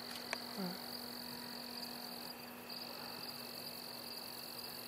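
Faint steady low hum under a continuous high-pitched drone, with a few faint ticks near the start.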